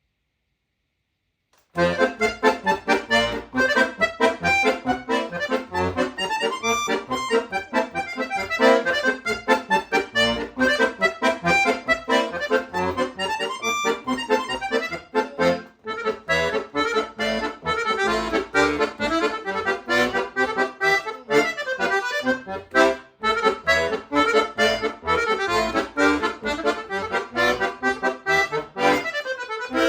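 Solo accordion starting to play about two seconds in after a silence, running through a fast passage of many quick notes with bass notes sounding beneath the melody. It drops away briefly twice, about halfway and again a little later.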